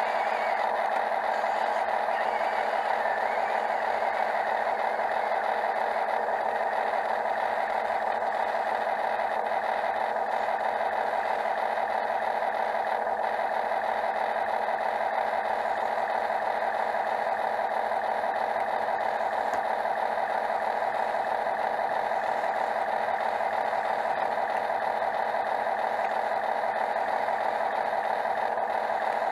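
Heavy construction machinery, an excavator or dump truck, with its engine running as a constant, even drone that does not rise or fall.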